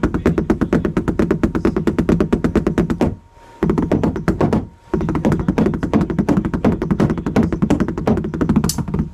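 Drums struck with light-up LED drumsticks in fast, even runs of strokes, heaviest in the low drums. The playing breaks off briefly twice, about three seconds in and again before five seconds.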